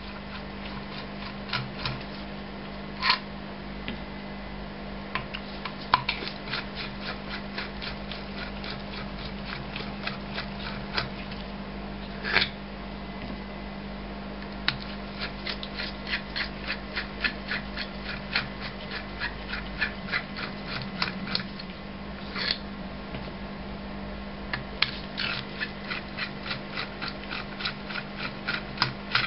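Torx screwdriver turning out the T25 screws from the cast top plate of a Bosch diesel injection pump's EDC unit: runs of light, rapid clicks at about five a second, with a few louder sharp clicks. A steady low hum runs underneath.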